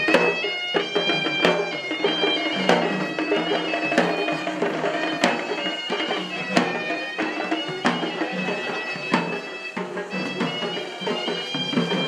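Procession music from a band of shrill reed pipes and drums: a held, stepping melody over a steady low drone, with a drum stroke about every second and a quarter.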